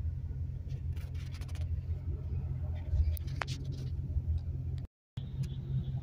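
Helicopter hovering, heard as a steady low rotor and engine drone, with a few light clicks about a second in. The sound cuts out for a moment near the end.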